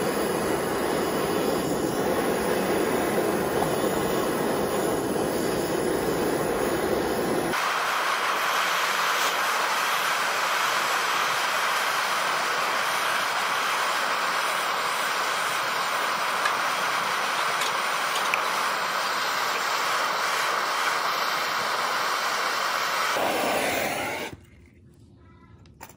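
Handheld gas torch burning with a steady rushing noise while it heats a small steel vise's jaw to red heat. The noise turns brighter and higher about 8 seconds in, then cuts off near the end.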